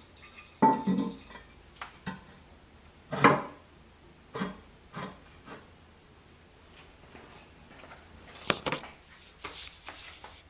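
Porcelain toilet tank lid being handled and set back on the tank: a series of hard clunks and short scrapes, loudest about a second in, around three seconds in and near the end.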